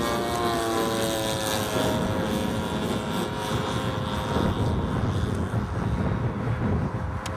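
Propeller-driven biplane flying overhead. Its engine note falls in pitch over the first couple of seconds and then holds steady, over a low wind rumble on the microphone.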